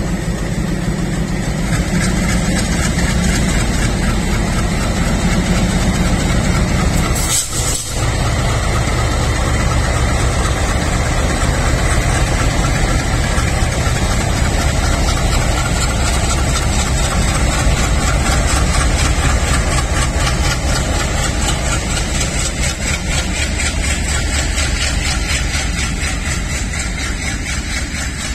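Two ALCO-engined WDM3D diesel locomotives, 16-cylinder engines running under power as they pull slowly past: a loud, steady, rhythmic throb. There is a brief break about seven and a half seconds in, after which the throb carries on with a deeper tone.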